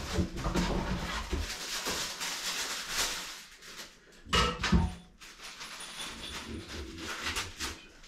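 Irregular handling noise: rustling and small clicks and knocks, with one louder, brief clatter about four and a half seconds in.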